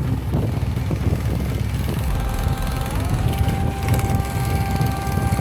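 Motorized snow dog (small tracked snow tow vehicle) engine running under load as it tries to climb, a dense low rumble with wind buffeting the microphone.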